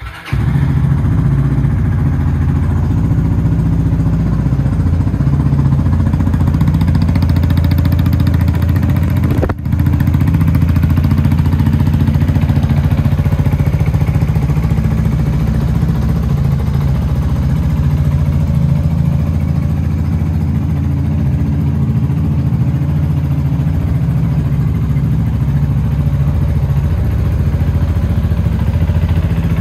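Yamaha Majesty 155S scooter's single-cylinder four-stroke engine starting right at the beginning, then idling steadily through an aftermarket MACMRD muffler.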